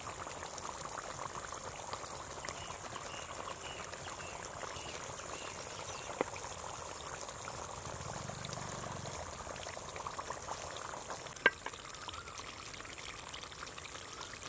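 Pomfret curry simmering in a metal pot over a wood fire, with a steady wet bubbling. Two sharp clicks sound, about six seconds in and, louder, about eleven seconds in.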